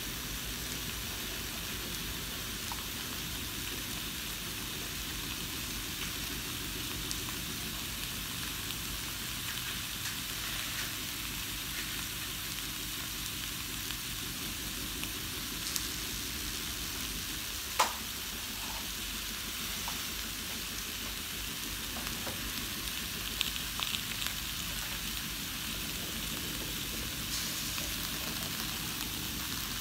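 Salmon and vegetables sizzling in a Saladmaster stainless steel pot: a steady hiss with scattered small pops, the sharpest about 18 seconds in.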